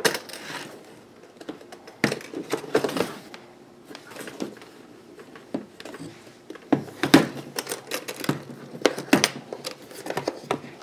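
Clicks and knocks of a hard-shell microphone carrying case being handled and its latches worked open. The case is stiff, sealed tight. The knocks are scattered, and the sharpest come in the second half.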